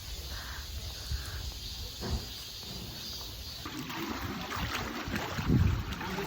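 Mountain-stream water running and trickling, over a steady low rumble, growing busier in the second half with a louder swell near the end.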